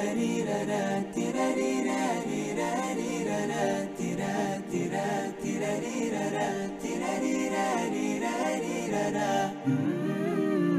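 Background music of voices singing a cappella-style, with a new phrase starting near the end.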